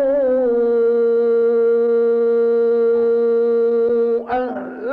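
A male Quran reciter chanting in the melodic mujawwad style, holding one long, steady note for about four seconds as he draws out the word 'wa-annahu'. The note breaks off about four seconds in and a new phrase starts near the end.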